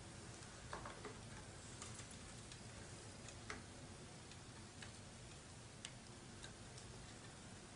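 Faint, irregular small clicks and taps from handling RAM modules on a Mac Pro memory riser card, over a quiet hiss.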